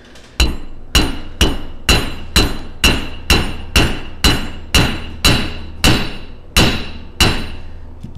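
A 2-pound hammer striking wire rings on a cast iron anvil, about fourteen blows at roughly two a second, slowing slightly near the end. Each blow rings briefly with a clear metallic tone. This is flattening the ring ends for riveted mail.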